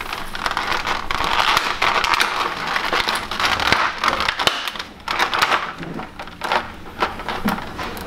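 Sticky tape being peeled off plastic packaging, with crackling and crinkling of the plastic and many small clicks.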